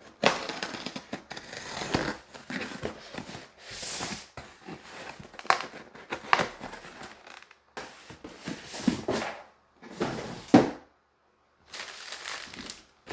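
A shipping package being opened and unpacked by hand: irregular crinkling and rustling of packaging with sharp scrapes and knocks, pausing briefly twice.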